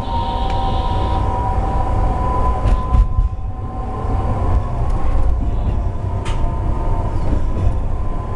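Chemins de fer du Jura ABe 2/6 electric railcar running on snowy track, heard from inside just behind the driver's cab: a steady low rumble with a constant motor hum. A few sharp clacks from the wheels on the track come about three, five and six seconds in.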